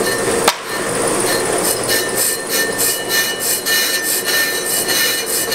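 Accu-Turn brake lathe running with a brake rotor spinning on its arbor, a steady mechanical hum, with one sharp click about half a second in. From about two seconds in, a high hiss pulses about three times a second.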